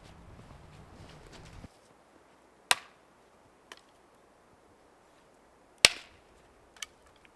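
Two sharp chopping strikes, about three seconds apart, each followed about a second later by a lighter knock. Before them, a steady low rumble cuts off abruptly.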